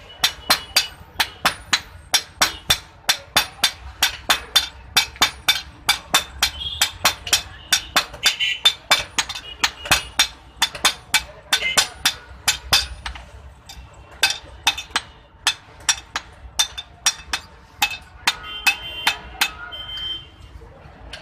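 Blacksmith's hand hammer striking iron on an anvil in a quick, even rhythm of about two to three blows a second, each blow with a short metallic ring.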